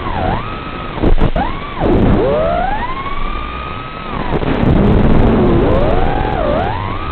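FPV quadcopter's brushless motors whining, their pitch swooping up and down with each throttle change as the quad dives, climbs and rolls, over a steady hiss. About a second in there is a short loud burst of crackling noise.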